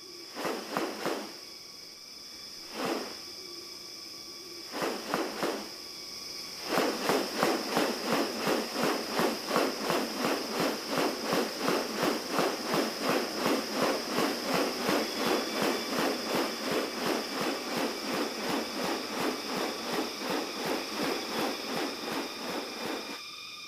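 Rainforest sounds: a steady high-pitched insect drone, with a few separate bursts in the first six seconds, then from about seven seconds in a long, even run of rapid pulsing calls, about three a second.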